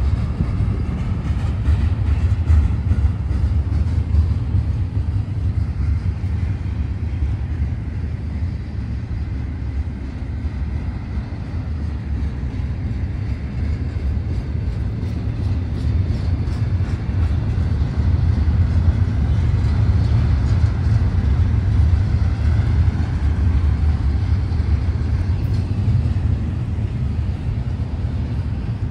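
Double-stack intermodal freight train's well cars rolling past, a steady low rumble of wheels on the rails that swells and eases slightly.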